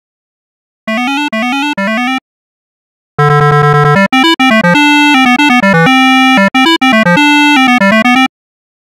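Computer-synthesized xylophone notes played in random order. A quick run of short notes comes about a second in. After a pause, a louder, denser run of overlapping notes follows from about three to eight seconds in, some of them held longer.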